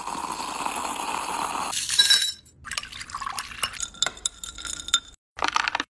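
A steady rush of liquid for about the first two seconds, then a metal spoon clinking irregularly against a drinking glass of water as it is stirred.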